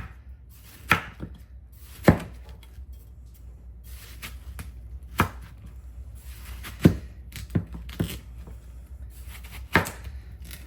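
Knife chopping food on a wooden cutting board: sharp, separate strikes at an uneven pace, roughly one every one to three seconds.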